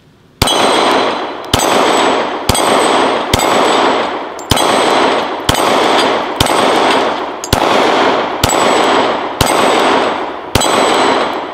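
Glock 23 .40 S&W pistol firing eleven shots about a second apart, each followed by the ringing clang of a steel dueling-tree plate being hit.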